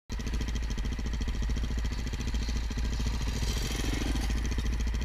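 Dirt bike engine running as the bike approaches and passes close by, swelling briefly as it goes past about four seconds in.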